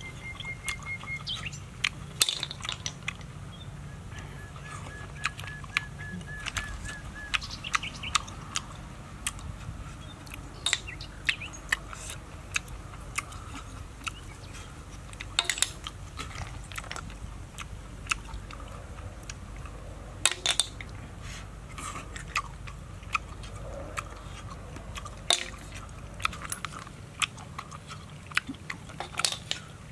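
Close-up eating of boiled snails: chewing and sucking the meat from the shells, with irregular sharp clicks and smacks throughout.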